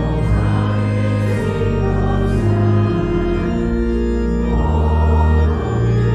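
Organ playing a hymn tune in held chords that change every second or two.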